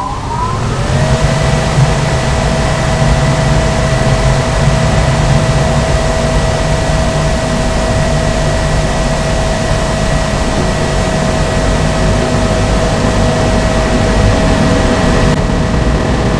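Electric-motor-driven centrifugal seal air fan finishing its run-up, its whine rising over about the first second, then running steady at full speed with a constant whine and a low rumble. This is a balancing trial run with a trial weight bolted to the fan, made to measure its vibration.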